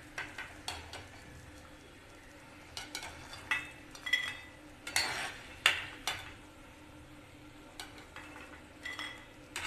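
Steel slotted ladle scraping and knocking against a steel kadhai as fried namak pare are lifted out of the hot oil and tipped onto a plate. It makes irregular clinks and scrapes, a few with a short metallic ring, over a faint sizzle of frying oil.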